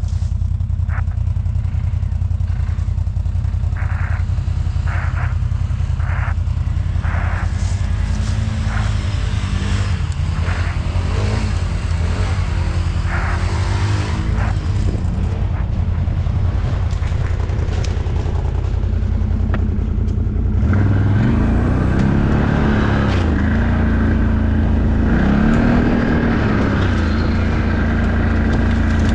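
ATV engine running under load, its revs rising and falling repeatedly, with some short knocks early on. The engine gets louder about two-thirds of the way through.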